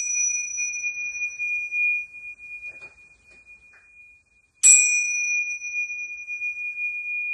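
A pair of small tingsha hand cymbals ringing with a clear, high, steady tone that slowly fades, then struck together again about four and a half seconds in and ringing on.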